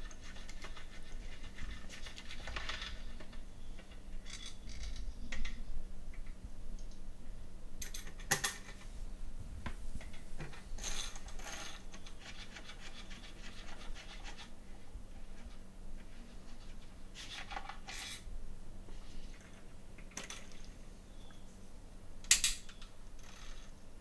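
Scattered metallic clicks, clinks and scrapes of bolts being backed out of a Ford 4.6L V8 intake manifold with a socket and by hand, with a few sharper clinks spread through.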